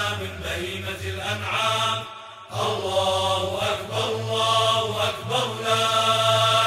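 Chanted vocal music: a voice sings long, held, wavering notes in Arabic over a steady low tone, with a brief pause about two seconds in.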